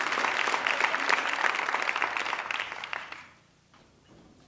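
Audience applause, many hands clapping, dying away about three seconds in.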